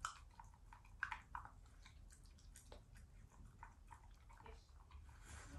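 Shiba Inu chewing its food: faint, scattered crunches and clicks of teeth, the loudest right at the start and about a second in.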